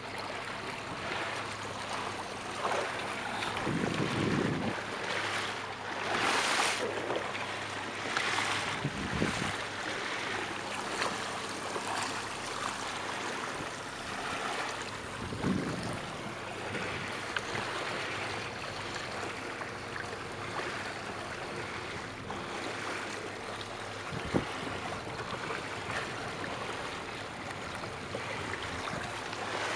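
Water lapping and splashing against a small motorboat's hull, with wind buffeting the microphone; several louder swishes come and go, and there is a single short knock past the middle.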